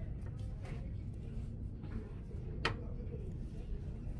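Store room tone: a steady low hum with faint, indistinct background voices, and one sharp click of merchandise being handled on a shelf about two-thirds of the way through.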